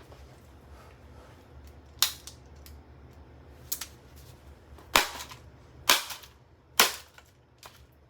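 Sharp blows striking a Revlon hair dryer as it is smashed: a strike, then a run of three loud strikes about a second apart, with a couple of lighter knocks between them.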